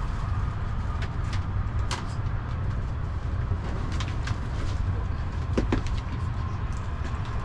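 Light clicks and taps of plastic takeout containers and plastic cutlery as food is cut and eaten, over a steady low hum. A short whine about two thirds of the way through.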